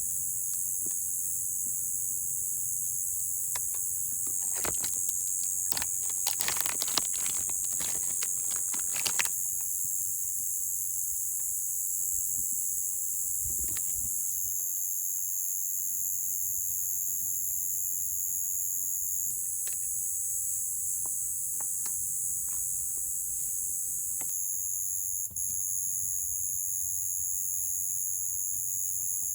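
Steady high-pitched chorus of insects, with a second layer that starts and stops for stretches of several seconds. About five to nine seconds in there is a run of clicks and light knocks.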